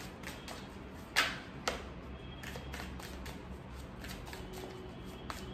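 A deck of tarot cards being shuffled by hand: a run of light card clicks and riffles, with two louder snaps about a second in.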